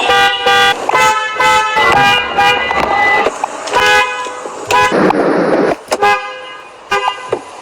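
Car horn sounding in a series of short honks, each about a second long, with a brief rushing noise about five seconds in.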